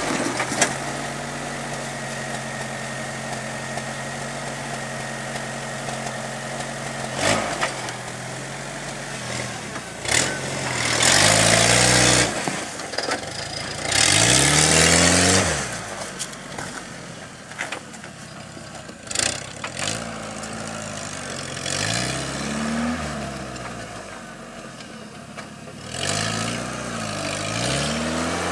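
Suzuki Samurai rock crawler's engine idling steadily, then revved hard in several rising-and-falling bursts as the buggy crawls up over rocks. The two loudest revs come with a hissing rush, and a few sharp knocks sound in between.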